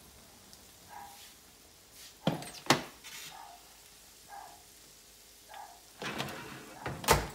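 Metal baking sheet of freshly baked meatballs clanking as it is slid off the oven rack and set down on a glass stovetop: two sharp clanks a few seconds in, a few small knocks, then a scrape and a heavier bang near the end.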